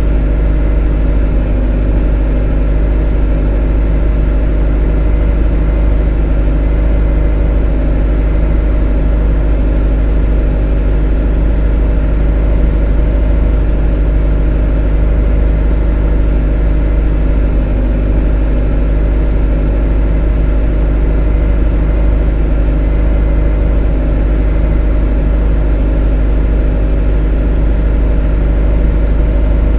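A motor running steadily at constant speed: a deep, unchanging hum with a stack of steady tones above it.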